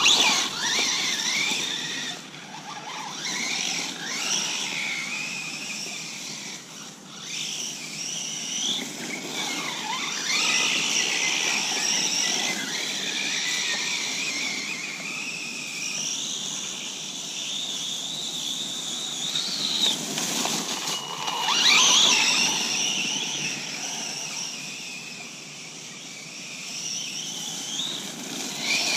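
Electric motor and drivetrain of an Axial Exo Terra RC buggy whining, its high pitch rising and falling again and again as the car speeds up and slows down. The loudest run-up comes about 22 seconds in.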